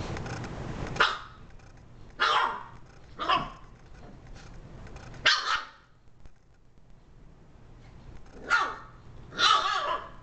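Shiba Inu barking up at a cat: about six short, sharp barks with uneven pauses between them, the last two coming close together.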